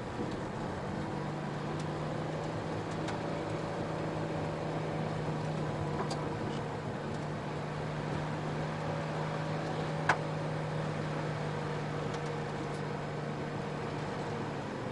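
Car engine running at a steady low speed with tyre noise on a rough unpaved road, heard from inside the cabin. A few brief sharp clicks sound over it, the loudest about ten seconds in.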